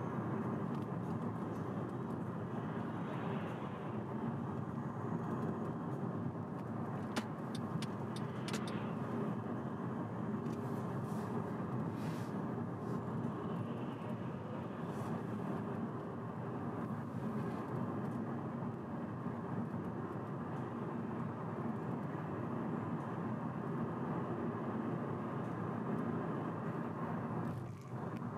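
Steady road and tyre noise of a car driving along, with a short run of faint ticks about seven to nine seconds in.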